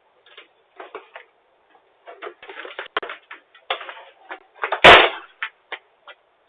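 A run of short, irregular scuffs and clicks through a video doorbell's narrow, tinny microphone, with one loud bump about five seconds in.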